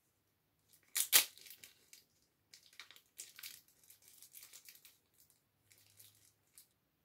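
Plastic packaging crinkling and tearing as it is handled: a sharp crack about a second in, then scattered crackly rustling.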